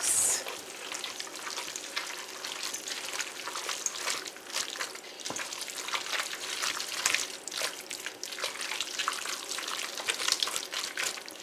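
Thick, creamy broccoli and cheese casserole mixture being stirred in a stainless steel mixing bowl: a continuous run of wet squishing and stirring noises.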